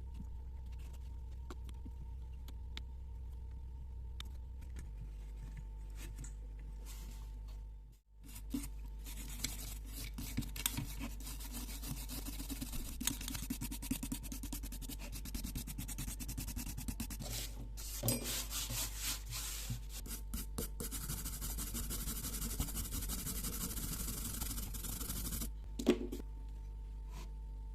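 A steady low hum at first, then a long stretch of hand rubbing and scraping on a carburetor part, with many small clicks, ending just before a single knock.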